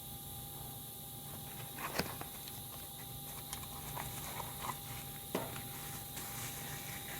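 Drill parts being handled and pulled apart: small plastic and metal clicks, with a sharper knock about two seconds in and another just past five seconds, over a steady faint hiss.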